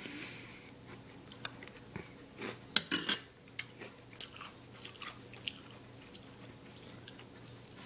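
A person chewing a mouthful of Reese's Puffs cereal, making irregular crunches, with a louder burst of crunching about three seconds in.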